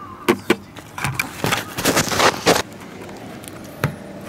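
Oil filter wrench on a car's spin-on oil filter: two sharp metal clicks as the wrench grips, then a burst of scraping and rustling as the filter is twisted loose with the camera being handled, and one more click near the end.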